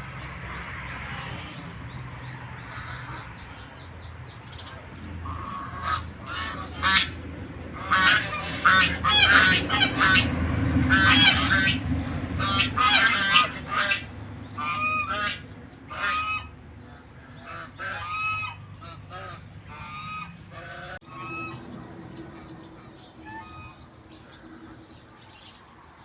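Domestic geese honking: a flock calling in many short honks close together, busiest in the middle and thinning out near the end.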